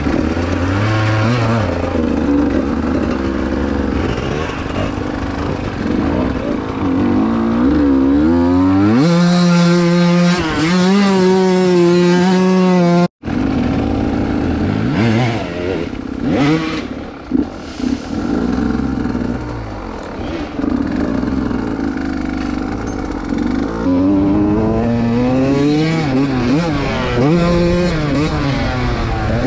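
Enduro dirt bike engine revving hard, its pitch climbing and dropping again and again as it accelerates and shifts. About nine seconds in it holds a steady high note for several seconds, then the sound cuts off abruptly for an instant before the revving picks up again.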